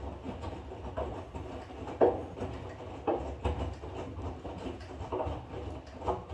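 Front-loading washing machine drum tumbling a wet load of bedsheets and towels in sudsy water: the laundry sloshes and thuds every second or so over a steady low motor hum.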